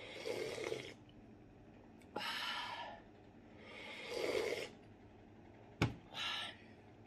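A person slurping broth from a coconut-shell bowl: a few noisy sips and breaths, each a second or less. Near the end there is a sharp knock as the bowl is set down.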